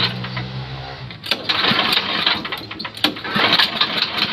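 Small single-cylinder petrol engine running roughly and unevenly while it is being brought up after a start with the choke. It sags about a second in, then picks up again with irregular popping.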